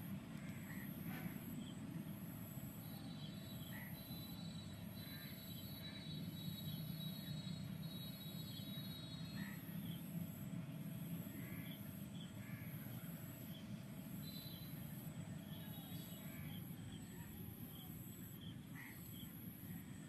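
Outdoor background: a steady low rumble with scattered short bird calls and a faint high pulsing that repeats about once a second.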